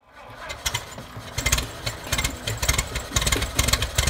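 Antique engine running at idle with a rhythmic clatter of about two strokes a second, fading in at the start.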